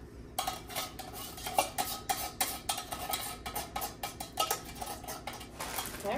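A spoon scraping and knocking inside a tin can, emptying the last of the canned soup onto the casserole. It makes a quick, irregular run of clicks and scrapes.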